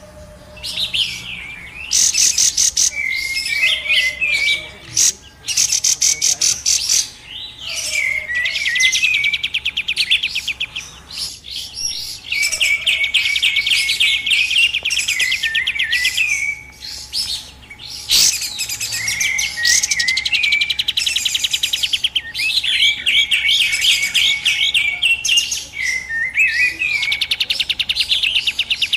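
Lure recording of kapas tembak (a bulbul) calling busily: runs of fast, high trilling notes mixed with short hooked whistles, repeating every few seconds with brief pauses.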